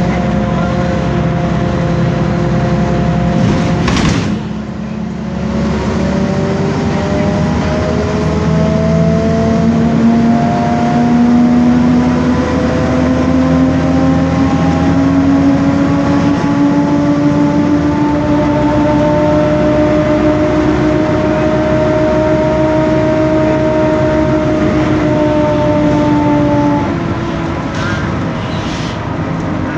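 Rear differential of a BMC Belde 285CB city bus whining loudly from inside the cabin, over the low drone of its diesel engine. The whine rises in pitch as the bus picks up speed, holds, then eases off near the end. There is a knock about four seconds in. The uploader calls the differential noisy.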